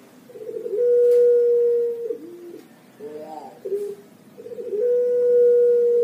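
Puter pelung dove cooing: a quick run of short notes leads into a long, steady held coo of over a second, then a few shorter, lower notes follow, and the same phrase comes again near the end.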